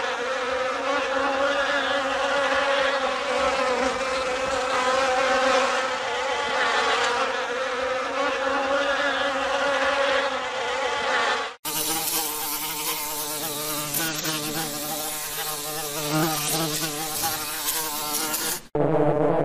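Bee buzzing in flight, a steady pitched drone. A little over halfway it breaks off briefly and another buzzing recording follows, lower and wavering in pitch, with another short break near the end.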